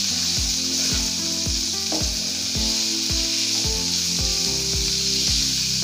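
Chicken pieces sizzling as they fry in a nonstick pan, a wooden spatula scraping and stirring as ground spices are mixed in. Background music with a steady beat of about two thumps a second plays along.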